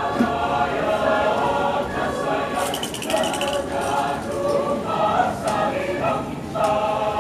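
Mixed choir of men's and women's voices singing together in several parts, the chords held and changing.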